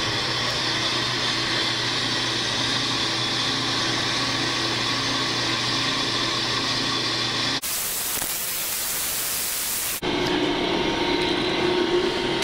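FMC bench brake lathe running a rough cut on a rusted brake rotor, the cutting bits feeding across both faces and taking about eight thousandths per side: a steady machine hum and whine with a hiss of cutting. For about two seconds past the middle, an even hiss takes its place, and then the lathe sound returns.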